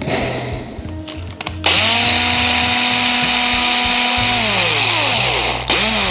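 Cordless electric screwdriver backing out a screw: the motor runs at a steady speed for about four seconds, then its pitch falls as it winds down, and a short second burst follows near the end.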